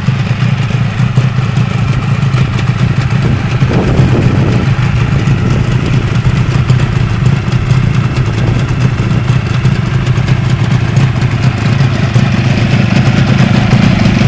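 Suzuki RG400 Gamma's two-stroke square-four engine idling steadily, a newly assembled bike running well.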